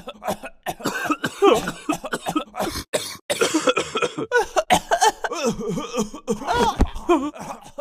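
A cartoon character coughing in a long, unbroken fit: many short coughs in quick succession, several a second, with strained voiced sounds between them.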